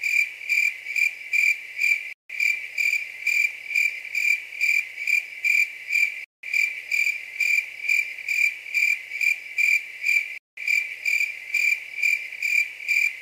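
Looped cricket-chirping sound effect: an even chirp about three times a second. It cuts out briefly three times, about every four seconds, where the loop restarts. This is the stock 'crickets' gag for an awkward silence after a joke falls flat.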